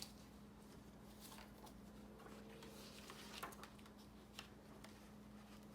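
Near silence: room tone with a faint steady hum and a few faint scattered clicks.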